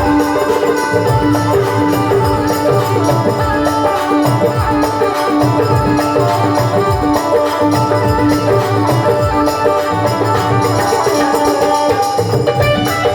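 Instrumental Marwari folk music: hand drums beating a steady rhythm under a sustained melodic line, with no singing yet.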